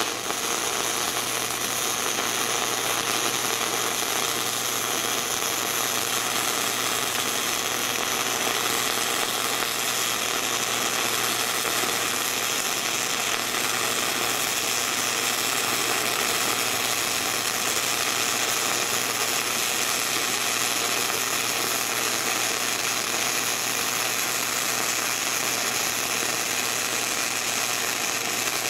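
Gasless flux-core wire-feed welding arc on a 110-volt welder, burning steadily without a break while a root pass is laid.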